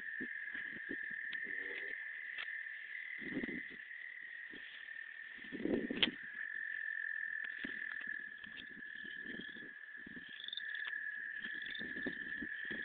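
Brushing and rustling through dry grass in irregular bursts, the loudest about six seconds in, over a steady high-pitched whine, with a few short chirps near the end.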